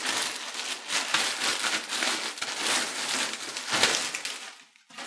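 Clear plastic bag crinkling and rustling as a quilted backpack is pulled out of it, with a louder rustle just before the sound dies away near the end.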